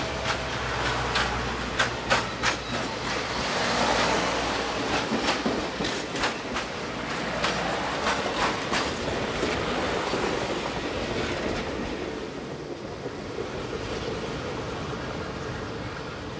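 Tennessee Valley Railroad excursion train's passenger cars rolling past, wheels clacking over the rail joints in quick clusters over a steady rumble, the sound growing fainter near the end as the train moves away.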